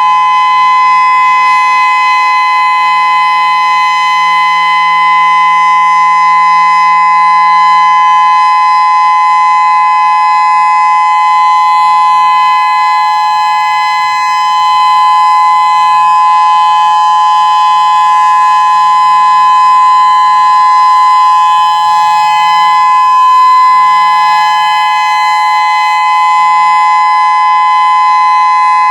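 Whelen WPS-3016 electronic outdoor warning siren sounding its steady alert tone during a monthly test: a loud, unbroken chord of two close pitches that holds level without rising or falling.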